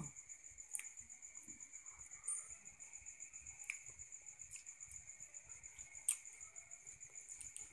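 Crickets chirping in a steady, fast pulsing trill, with a few sharp clicks of a boiled duck eggshell being cracked and picked off by fingers; the loudest click comes about six seconds in.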